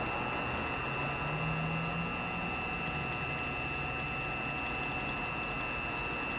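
Wood lathe running steadily with a high motor whine, a shop towel held against the spinning holly pen blanks on the mandrel.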